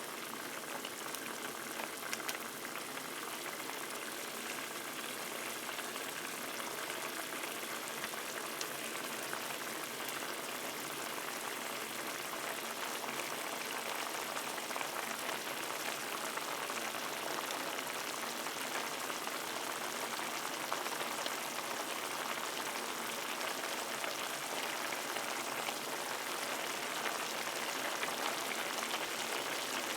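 Fish frying in hot oil, a steady sizzle with fine crackling that grows slightly louder over the course.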